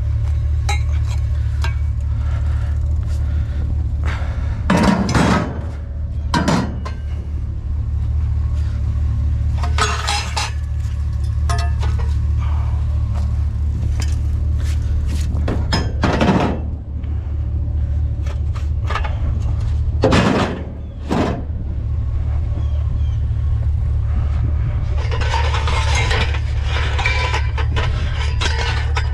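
Scavenged junk clattering and clinking as it is handled, with about five sharp knocks spread out, over a steady low hum.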